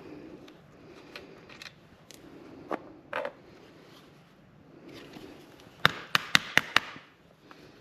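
Metal chainsaw parts and tools being handled: scattered light clicks and knocks, a duller clunk, then a quick run of about six sharp clicks past the middle.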